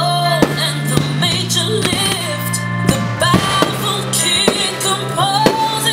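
A song with a singing voice over a steady low bass note, with the sharp bangs of aerial firework shells bursting several times through it.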